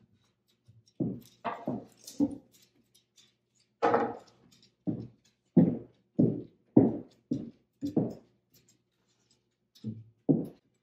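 A series of wooden thunks and knocks as wooden chargers are set down on a wooden tabletop, mixed with footsteps on a hardwood floor. Through the middle the knocks come evenly, about one every half second or so.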